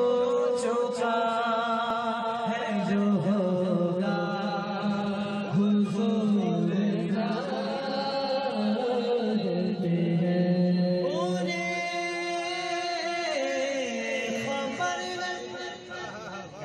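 Devotional vocal chanting with long held, wavering notes over a steady low drone.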